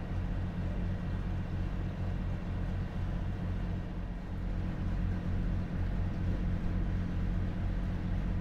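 A yacht's engine running steadily while under way, a low even drone with a light hiss of wind and water over it.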